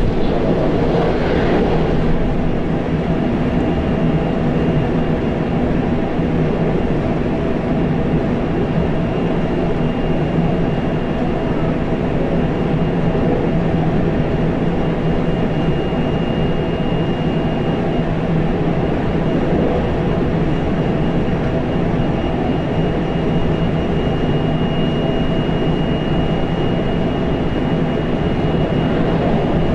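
Inside a JR Central 373 series electric train's motor car running steadily between stations: a constant rumble of wheels on rail and traction equipment, with a faint steady high tone.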